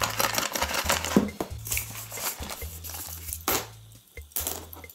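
Tape-wrapped parcel torn open by hand: packing tape and wrapping crinkling and tearing in quick irregular rips, with a few sharp taps near the end as small items land on the table. Background music with a steady bass line runs underneath.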